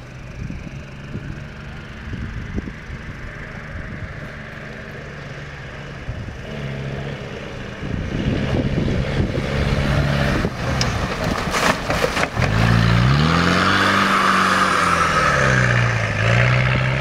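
Off-road buggy's engine approaching and getting louder, then revving up and down as it passes close by on a dirt track.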